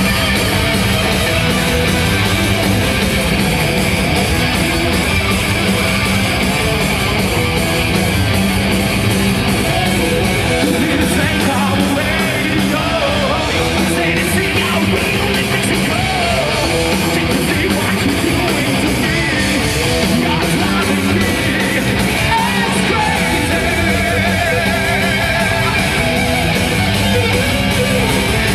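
Heavy metal band playing live and loud, with electric guitars to the fore.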